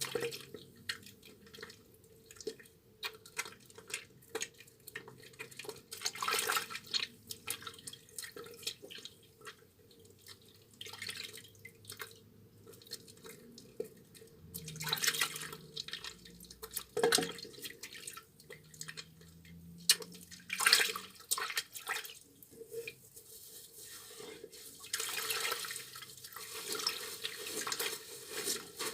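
A soaked, mushy bar of tar soap being lathered with water: wet squishing and clicking with dripping, and several longer watery swishes. A faint steady hum runs underneath.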